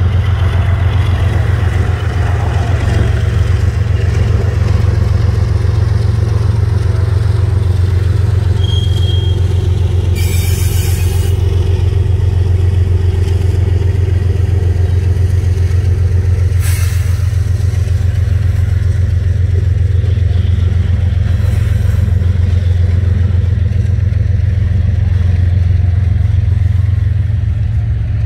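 Loud, steady low engine rumble, with two short hisses about ten and sixteen seconds in.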